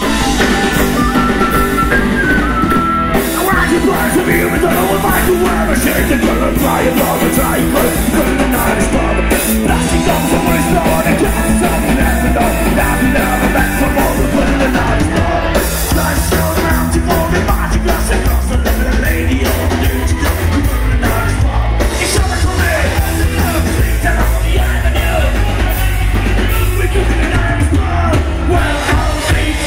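Live rock band playing loud, with a singer over a heavy, steady bass line and beat.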